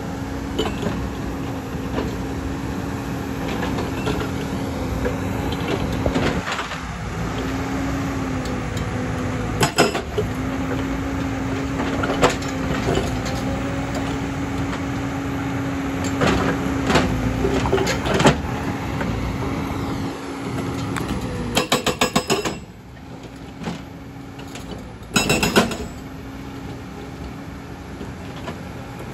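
A JCB tracked excavator's hydraulic breaker is hammering rock, with metallic clanks over the engine running under load. About three quarters of the way in, a quick run of rapid blows ends and the hammering stops. Only the engine is left, until a second short burst of rapid blows.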